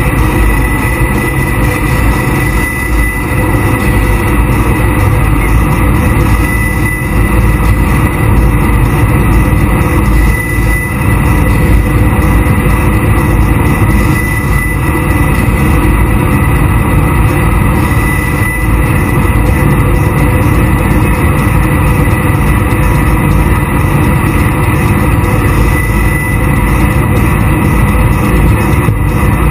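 A jet boat running at speed over waves: a loud, steady low rush of engine, wind and water, with a thin steady high whine running through it.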